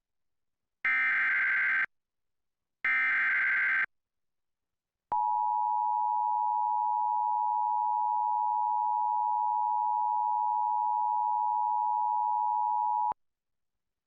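Emergency Alert System tones: the end of the first SAME header data burst and then two more, each about a second of harsh digital buzzing a second apart. After a second of silence comes the EAS two-tone attention signal (853 and 960 Hz sounded together), a steady tone held for about eight seconds that announces the alert message to follow.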